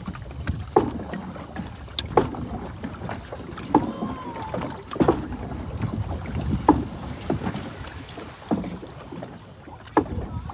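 A paddle being worked through the water of a small hand-paddled boat: a sharp splash-and-knock stroke about every second and a half, over a low wash of moving water.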